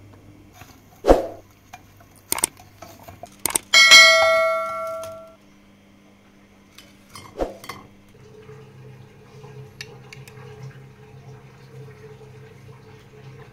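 Kitchen handling sounds: a few sharp knocks of utensils against dishware, and about four seconds in a loud ringing clang of dishware that fades over about a second and a half.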